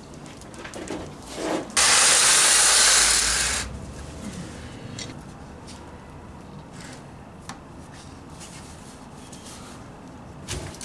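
A loud rustle about two seconds in, lasting about two seconds: a quilted jacket rubbing against a clip-on microphone as the wearer crawls under the car. Then a few faint clicks and taps of a wrench working at the drain plug.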